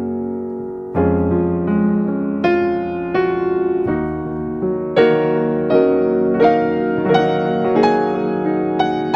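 Background piano music: gentle notes struck about every half second to second, each ringing and fading.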